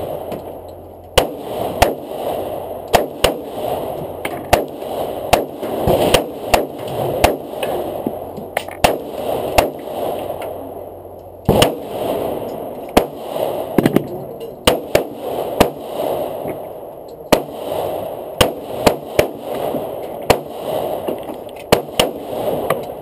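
Handgun shots fired in a long irregular string, about one or two a second, over a steady background noise.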